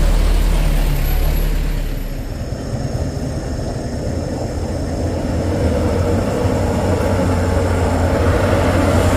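A motor vehicle's engine running steadily. It eases off about two seconds in and builds back up toward the end.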